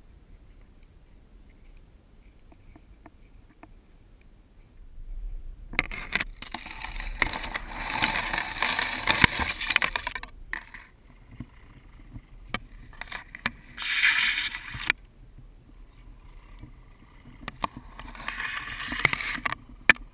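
Bursts of rustling, scraping noise from an RC scale truck towing a boat trailer through reeds and mud at the water's edge, heard close up from on board, with quieter stretches between.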